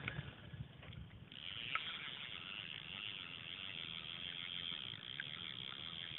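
A dense, steady, high-pitched chorus of calling animals, such as insects or frogs, starts abruptly about a second in and carries on without a break. A few light clicks come just before it.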